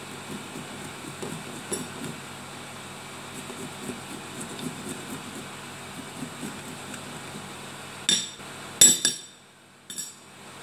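Kitchen clatter while making tea: a few sharp clinks and knocks of glass and utensils near the end, the loudest about nine seconds in, over a steady background hum.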